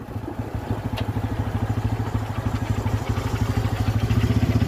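Motorcycle engine running at low speed with a fast, even beat that grows gradually louder.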